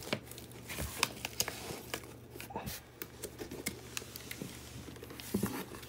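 Cardboard box and packaging being handled by hand: scattered rustles, scrapes and light knocks, busiest in the first second and a half. A low steady hum runs underneath.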